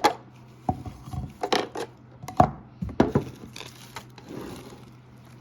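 Hard plastic parts of a toothbrush holder clacking and knocking as they are handled, with about five sharp clacks in the first three seconds, then softer rubbing and rustling.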